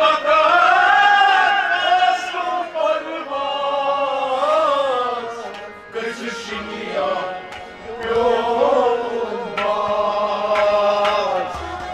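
A male singer performing a Sufi devotional song in long, drawn-out melodic phrases that rise and fall slowly, with instrumental accompaniment.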